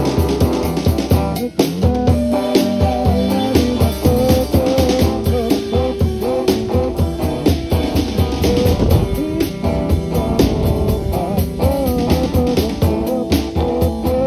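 A Chasidic rock band playing live: electric guitar, bass guitar and a drum kit keeping a steady beat, with a guitar line that bends in pitch.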